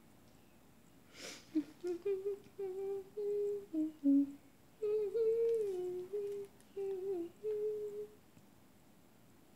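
A girl humming a short tune without words: a string of held notes, rising and falling, starting about a second and a half in and stopping near the end. A brief rush of breathy noise comes just before the first note.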